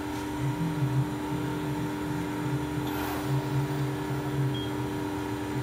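Hydraulic power unit of an Amada FBD-8025 NT press brake running: a steady electric motor and pump hum with a lower layer that swells and fades unevenly.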